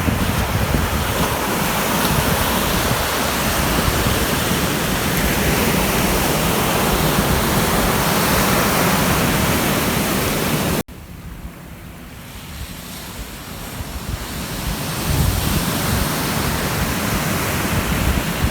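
Ocean surf washing onto a beach, a steady rush with wind rumbling on the microphone. It cuts off abruptly about eleven seconds in, then comes back quieter and swells up again.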